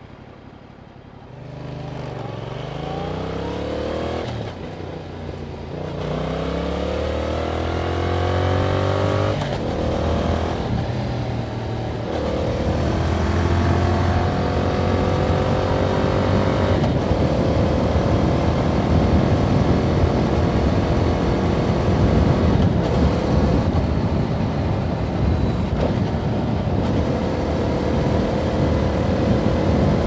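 2021 Yamaha MT-07's parallel-twin engine on its stock exhaust accelerating from low revs up through the gears. The pitch climbs and drops back at several upshifts in the first dozen seconds, then settles into a steady cruise while wind and road noise grow louder.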